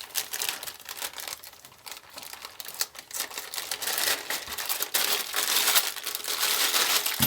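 Packaging crinkling and rustling in irregular bursts with small clicks, louder in the second half, as the cooler's bagged mounting hardware is unwrapped.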